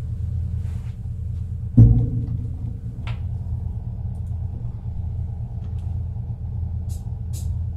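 Steady low rumble and hum picked up by a home recording microphone, with one loud thump about two seconds in and a few faint clicks near the end.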